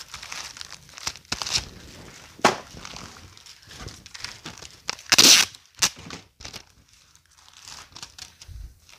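Plastic poly bags crinkling and rustling as bottles are put into them, with a few sharp clicks and one louder tearing rip about five seconds in.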